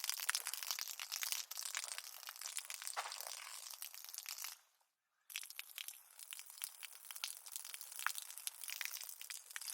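Water from a garden hose spraying onto concrete: a dense, crackling hiss of spattering droplets. It fades out about four and a half seconds in, stops for half a second, then starts again suddenly.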